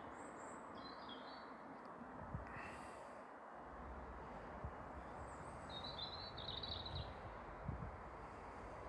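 Birds chirping in short phrases, once near the start and again about six seconds in, over a steady background hiss, with a few faint low thumps.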